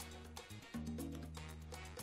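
Background Latin, salsa-style music with a bass line of held notes and regular percussion hits.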